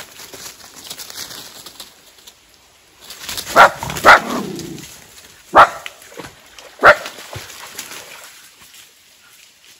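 A dog barking four times in short, sharp barks, the first two close together.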